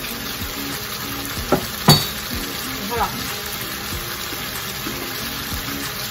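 Squid and squid-ink sauce cooking in a frying pan, with a steady sizzle and small bubbling blips. A few sharp pops stand out, the loudest about two seconds in.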